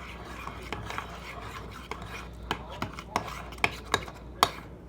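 A spoon stirring clear glue and slime activator in a bowl, scraping, with several sharp clicks of the spoon against the bowl in the second half. The mixture is starting to activate into slime.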